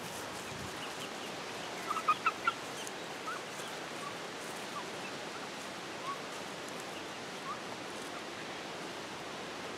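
Chickens and Muscovy ducks calling: a quick run of four sharp clucks about two seconds in, then short scattered chirps, over a steady background hiss.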